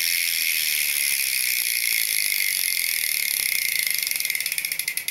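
BMX cassette rear hub freewheeling as the back wheel spins: a fast, even run of pawl clicks that slows near the end into separate clicks as the wheel runs down. Loud enough to hear but not overly loud.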